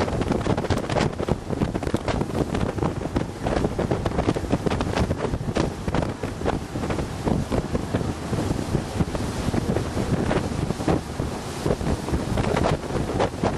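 Wind buffeting the microphone aboard a moving tour boat, over the boat's running noise and the rush of water. The sound is loud and gusting.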